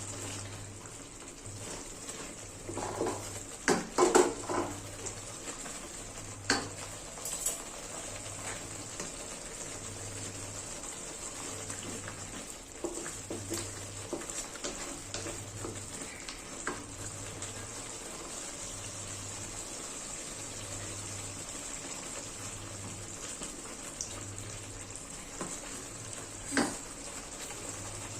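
Food sizzling steadily in a frying pan, with a few clinks and knocks of a utensil against the pan, a cluster of them about four seconds in and another near the end.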